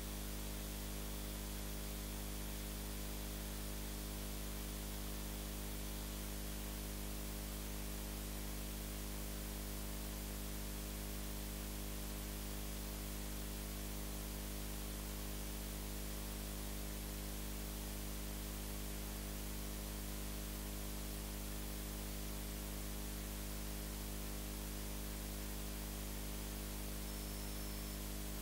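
Steady hiss with a low electrical hum underneath, unchanging throughout, with no music playing.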